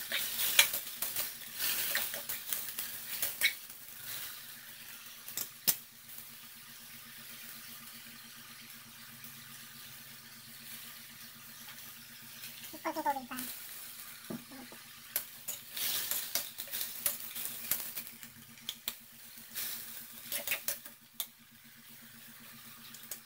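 Chopped cabbage sizzling as it sautés in a metal wok on a gas stove, with a metal spatula scraping and clacking against the pan during stirring in the first few seconds and again in the second half. A short falling call is heard once, about 13 seconds in.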